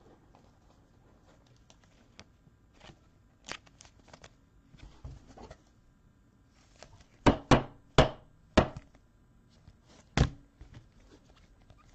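Trading cards being handled on a tabletop: faint ticks and shuffling, then four sharp knocks in quick succession a little past halfway and one more near the end, as the cards or the stack are tapped and set down on the table.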